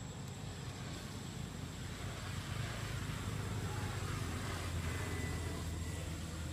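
Low rumble of a distant engine, like a passing motor vehicle, growing louder about halfway through and easing near the end.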